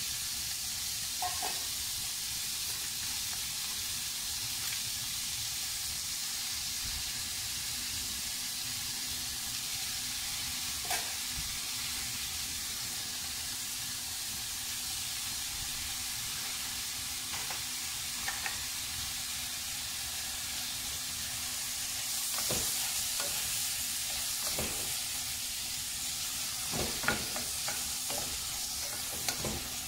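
Diced tomatoes and onion frying in a pan with a steady sizzle. A wooden spoon stirs them, with occasional knocks and scrapes against the pan that come more often in the last third, where the sizzle gets a little louder.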